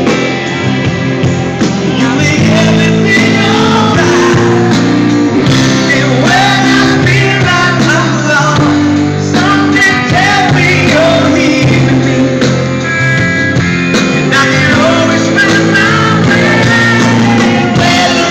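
Live pop-rock band playing at full volume: guitars and a steady chord backing, with singing over it.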